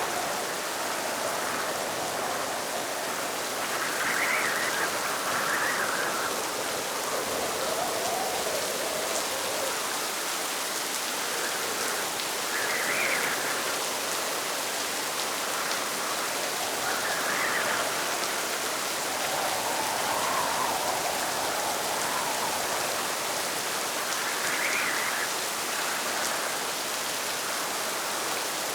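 Steady rain falling, with a swell of noise every few seconds.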